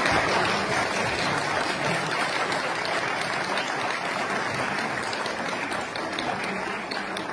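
Audience applauding steadily, slowly dying down.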